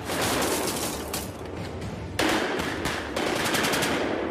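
Near-continuous automatic gunfire from submachine guns in a film battle soundtrack, growing louder about two seconds in.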